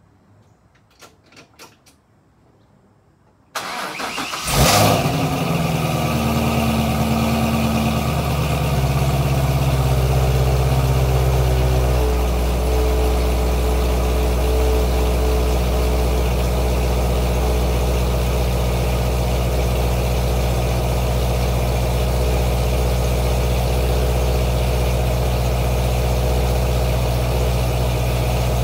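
C5 Corvette V8 with long-tube headers and stock mufflers, started up: a few faint clicks, then a brief crank about three and a half seconds in, and the engine catches with a sharp flare of revs. It settles into a fast idle that drops about eight seconds later to a steady, lower idle.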